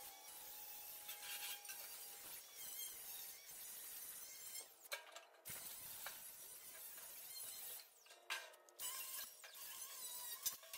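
Angle grinder with a wire wheel scrubbing slag and spatter off steel welds, heard faintly as a steady scratchy hiss that cuts out briefly a few times.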